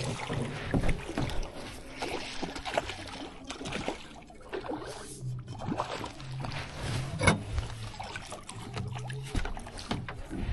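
Knocks, clicks and water sounds of a small trout being played and reeled in from a fishing boat, over a low hum that comes and goes.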